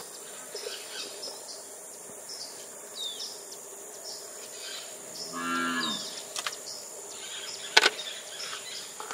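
A cow moos once, a call of about a second, a little past the middle, over a steady high insect hum and repeated short high chirps. A sharp knock near the end.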